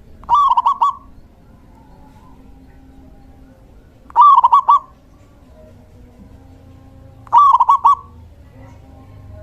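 Male zebra dove singing: three short phrases of quick cooing notes, spaced about three and a half seconds apart.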